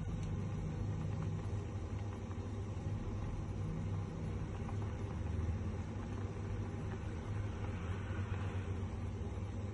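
Pot of pasta water at a rolling, foaming boil on a stovetop: a steady low rumble of bubbling, with a hissier patch about three-quarters of the way in.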